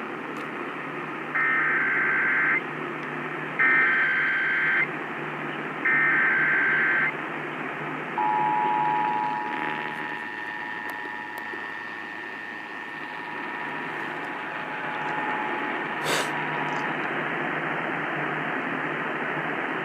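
Emergency Alert System header for a Required Monthly Test, received over radio: three short bursts of SAME digital data tones. These are followed by the two-tone EAS attention signal (853 and 960 Hz), held steady for about eight and a half seconds. Constant radio hiss underlies it all.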